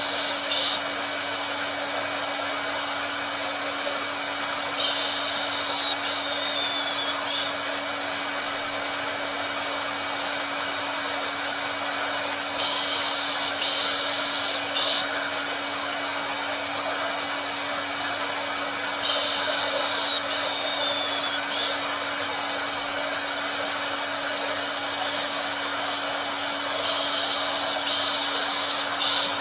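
Hair dryer running steadily, a continuous whooshing airflow with a constant motor hum. About every seven to eight seconds a brighter, higher hiss swells for a couple of seconds.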